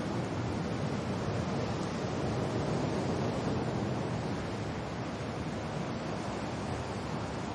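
Wind and rain: a steady, even rushing noise, strongest in the low range, that swells slightly about three seconds in.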